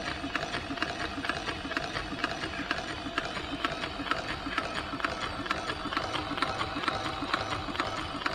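Small 1:12 scale twin-flywheel live-steam model engine running steadily on steam. Its Scotch-crank (slotted-yoke) mechanism makes a rapid, even clicking.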